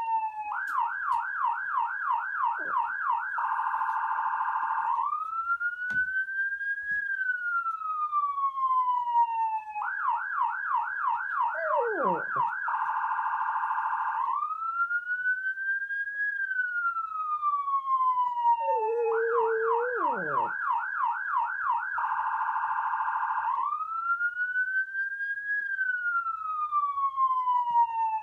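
Electronic police siren cycling through a slow rising-and-falling wail, a fast warbling yelp and a rapid trill, the pattern repeating about every ten seconds. A few short, lower tones slide down in pitch beneath it.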